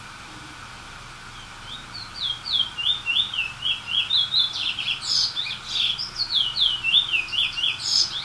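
Small songbird singing a phrase of repeated downward-slurred notes, about three a second, broken near the middle by a burst of quicker, rougher notes; the song starts about two seconds in and stops abruptly near the end.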